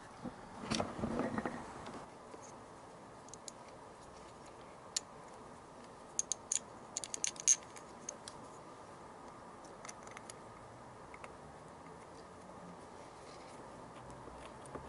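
Hand-work sounds of fitting rubber carburettor intake boots and their small fittings to a motorcycle cylinder head. There is a short rubbing and handling noise about a second in, then scattered light clicks and ticks, thickest a little past the middle.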